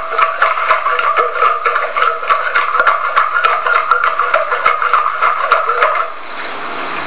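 A recorded sound of a closed tin being shaken by hand, meant to sound like cream being churned into butter, played back through a speaker: a fast, dense rattling clatter that stops suddenly about six seconds in.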